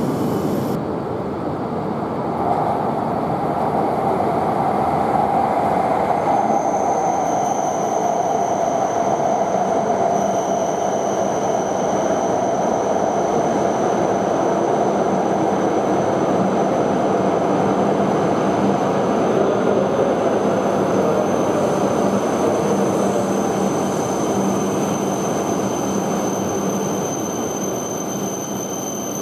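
H5 series shinkansen pulling slowly into the station and braking, with steady running noise and a whine that slowly falls in pitch as the train slows. A high thin squeal comes in about six seconds in and holds.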